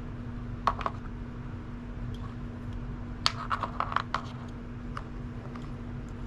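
Small clicks and taps of wires and connectors being handled on a workbench: a couple of sharp clicks near the start and a quick run of them midway, over a steady low hum.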